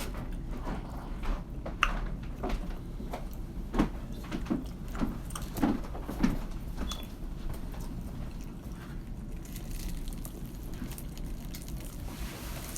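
Close-up eating sounds of fried chicken being bitten and chewed, with scattered small clicks and knocks from handling the food.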